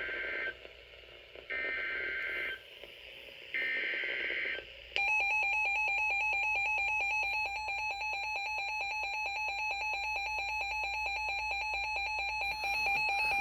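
Emergency Alert System data header: three one-second bursts of two-pitch data tones about a second apart, followed about five seconds in by the steady, harsh EAS attention tone that signals an alert is about to be read.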